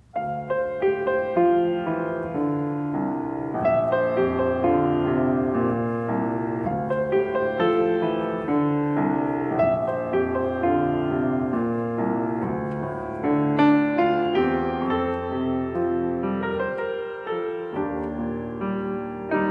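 A grand piano played solo: a steady flow of melody and chords that starts suddenly right at the beginning.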